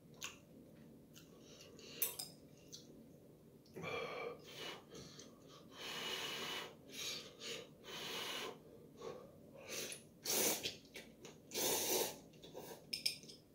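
A man slurping instant ramyeon noodles and broth from a bowl: a run of slurps, the longest about halfway through.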